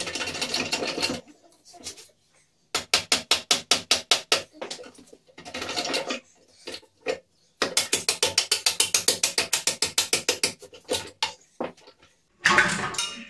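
Ratchet mechanism clicking in quick, even runs of about eight or nine clicks a second, twice, with a loud metallic scrape near the end.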